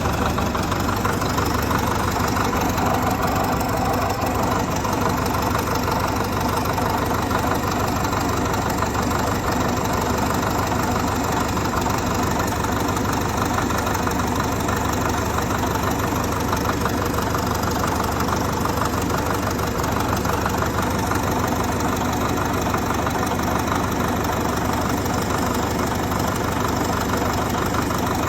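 Caterpillar D7E bulldozer's four-cylinder diesel engine idling steadily.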